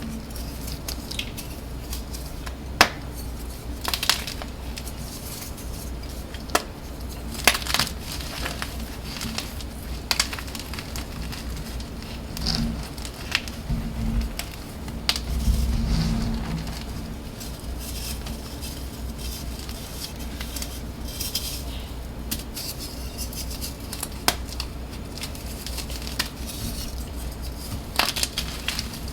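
Dyed BSN gym chalk blocks being crushed and crumbled by hand: irregular crisp crackles and snaps, over a low steady hum.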